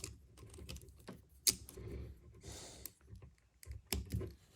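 Light plastic clicks and rattles from handling a Masterpiece Ratchet transforming figure as its weapons are plugged in, with two louder clicks, about a second and a half in and near the end.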